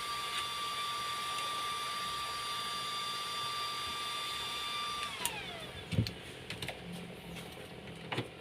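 Small electric motor running with a steady high whine and hiss, then switched off about five seconds in, its pitch falling as it spins down. A few clicks and knocks follow near the end.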